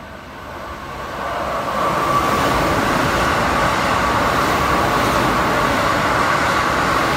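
Keikyu commuter train passing through the station at speed without stopping. The noise builds over the first two seconds as it arrives, then holds as a steady rush of wheels on rails with a high tone running through it.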